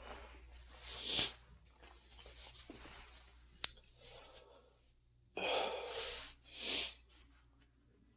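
A person breathing heavily: breathy exhales, one about a second in and three in quick succession near the end. A single sharp click comes about three and a half seconds in.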